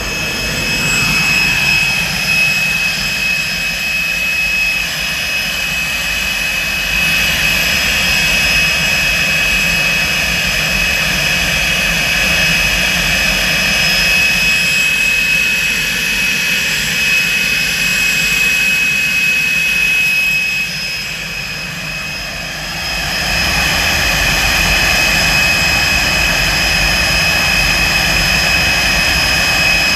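Motorlet M701C-500 centrifugal-flow turbojet running steadily on a test stand: a high steady whine over the rush of the exhaust. The sound drops briefly about two-thirds of the way through, then comes back to its full level.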